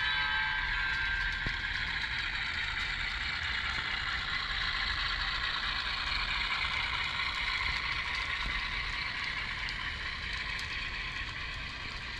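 HO scale model freight train rolling past on the layout track: the cars' metal wheels make a steady rushing clatter with occasional clicks. A chord of held tones from the locomotive's factory sound decoder fades away in the first second or two.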